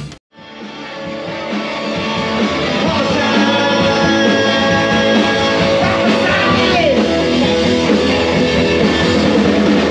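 Live rock band playing electric guitars with a voice singing, picked up by a camera inside a crowded bar. It fades in over the first couple of seconds after a brief drop to silence.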